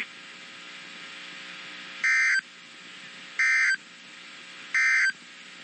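Three short, identical bursts of Emergency Alert System data tone about a second and a half apart, the end-of-message code that closes a weather radio alert, over steady radio hiss.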